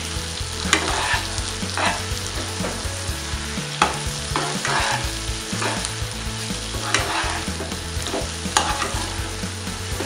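A spatula stirring and scraping a thick, sizzling onion-tomato masala with boiled eggs around a metal pan as it is sautéed, with a scrape every second or two over a steady sizzle.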